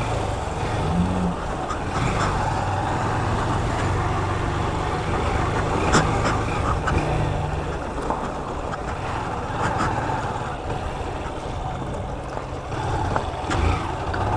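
Honda CG 160 Fan's single-cylinder four-stroke engine running at low speed in second gear while the motorcycle rolls over a rough dirt alley, its note rising and falling a little. A few sharp knocks stand out, one about six seconds in.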